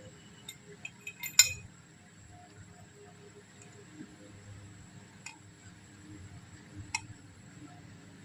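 Light metallic clinks and taps as a motorcycle steering-head bearing cup and its steel parts are handled and set in place: a cluster of clinks about a second in, the sharpest near a second and a half, then a few single ticks further apart.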